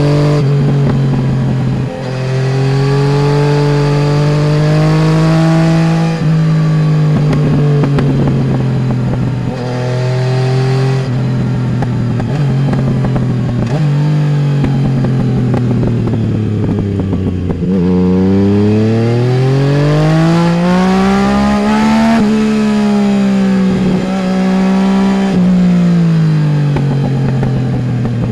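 Yamaha Tracer 900 GT's three-cylinder engine through a full Roads Italia aftermarket exhaust, heard from under the passenger seat while riding. The engine note rises and falls as the rider works the throttle and changes gear, with brief dips at each shift. About two-thirds of the way through it drops, then climbs in one long pull before easing off near the end.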